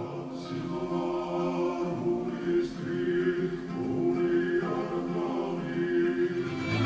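Georgian folk choir singing unaccompanied polyphony: several voices in held chords over a steady sustained drone.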